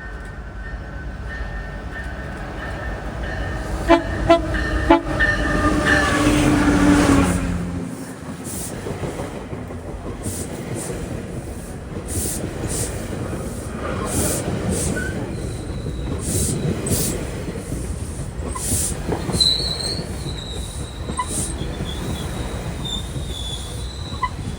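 GO Transit train's locomotive horn blowing a long chord, with a few sharp cracks about four to five seconds in; its pitch drops as the locomotive passes. Then the train rolls by with wheel clatter and a high steady wheel squeal in the second half.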